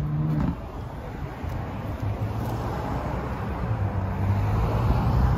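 A car horn held on, cutting off about half a second in, then the steady rumble of cars passing on the road.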